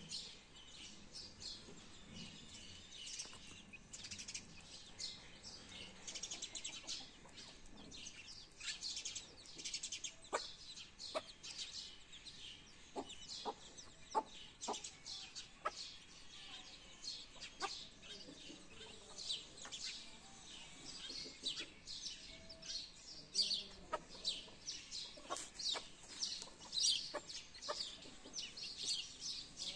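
A brood of newly hatched chicks peeping: a steady stream of short, high, falling peeps, several a second. The mother hen clucks low every so often among them.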